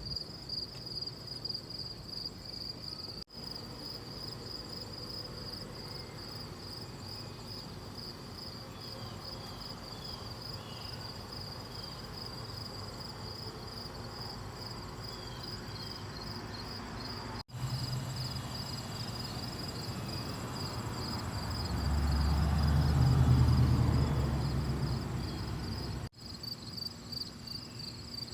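Insects chirring in a steady, pulsing high trill. Between about 21 and 25 seconds in, a low rumble swells and fades away, and the sound briefly drops out three times.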